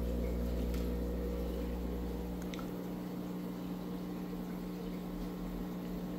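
Steady hum and water bubbling of an aquarium's pump and filter, with a low rumble underneath that drops away about halfway through.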